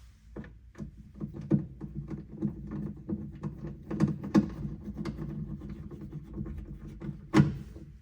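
Irregular clicks and knocks of metal hardware being worked while a CO2 bottle bracket is fitted to the truck's interior pillar, over a steady low hum, with one sharp knock near the end.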